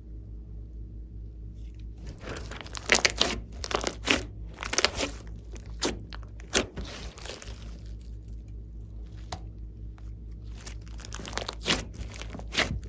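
Slime being squished and stretched by hand, giving clusters of crackly, popping bursts: first from about two seconds in for several seconds, then again near the end. A steady low hum runs underneath.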